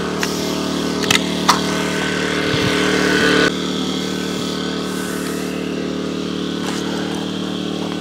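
Air compressor running with a steady hum, a little louder for a couple of seconds before dropping back. About a second in, a pneumatic nail gun fires twice in quick succession, driving nails into a wooden slab.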